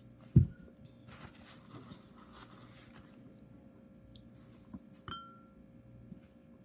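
A drinking tumbler set down on the table with a loud, dull thud, then a couple of seconds of soft scratchy noise. About five seconds in, chopsticks clink against the soup bowl with a short ring.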